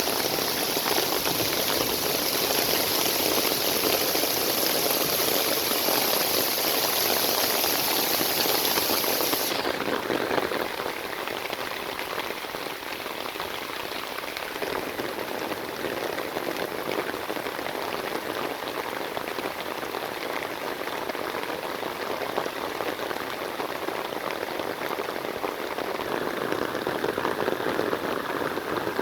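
Steady rain falling, a dense even patter. About ten seconds in, the high hiss cuts out suddenly and the sound becomes a little quieter.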